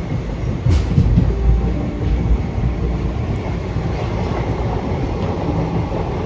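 Indian Railways passenger coach running at speed, heard from inside: a steady rumble of wheels on track, with one brief sharp clank less than a second in.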